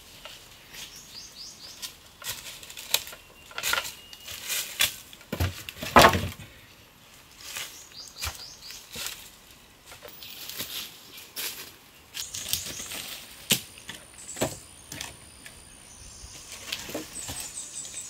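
Cut wooden sapling poles knocked and dropped onto a pile, with rustling through dry leaf litter; the loudest knock comes about six seconds in. Birds chirp in the background.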